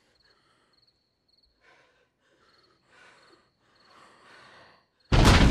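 Faint insects chirping in short repeated trills, with soft breathing. About five seconds in, a sudden loud crash breaks in and keeps going.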